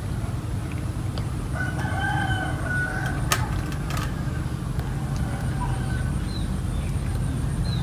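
A rooster crowing once, a pitched call of about a second and a half starting near two seconds in, over a steady low rumble. A sharp click comes a little after three seconds.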